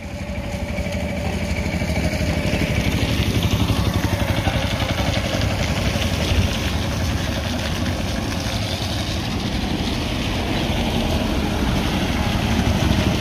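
A vehicle's engine running steadily while driving, a dense low rumble that builds over the first couple of seconds and then holds, with a faint steady whine in it early on.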